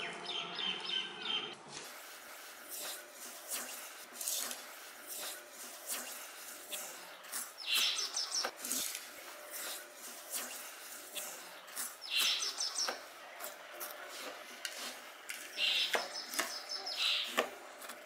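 A small bird chirping in short rapid trills three times, about four seconds apart, the last one longer. Under it, faint clicks and scrapes of a metal spoon stirring sugar and orange mix in a pot.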